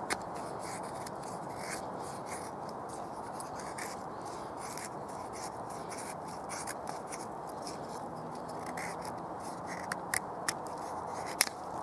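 Knife blade shaving curls down a wooden stick to make a feather stick: a run of short, repeated scraping strokes, with a few sharper clicks near the end.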